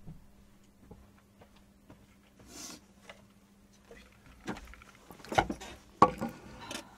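Someone sitting back down at a wooden table with a plastic cup of water: scattered light knocks and rustles of the chair and body moving. The knocks grow stronger in the second half, with a sharp knock about six seconds in. A faint steady hum runs underneath.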